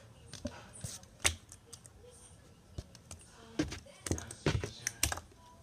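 Homemade slime being kneaded by hand: irregular small sticky clicks and squishes, coming thicker in the second half.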